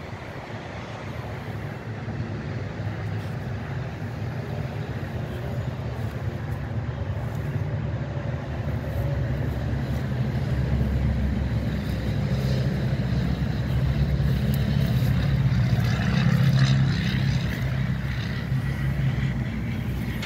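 Low, steady rumble of a motor vehicle's engine running, growing louder through the second half.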